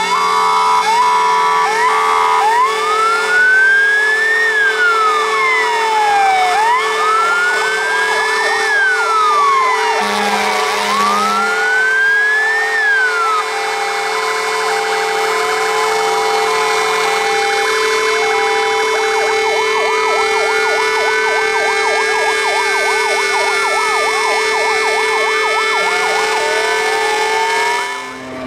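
Several fire engine sirens sounding at once: a slow wail rising and falling, a two-tone hi-lo, and fast warbling yelps, over a steady tone, with two short horn blasts about ten seconds in. The sirens cut off at the end.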